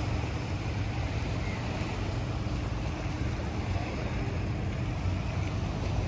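Steady beach ambience: an even low rumble under a light hiss, with no single sound standing out.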